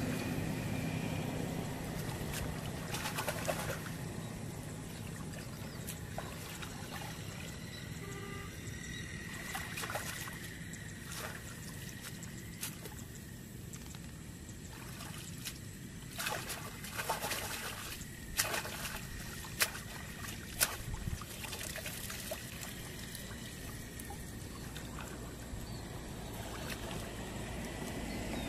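Muddy shallow water trickling and sloshing as hands grope through it and the mud beneath, with scattered small sharp splashes, several of them close together a little past halfway.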